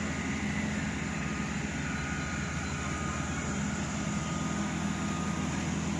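A steady low mechanical hum over street background noise, unchanging throughout.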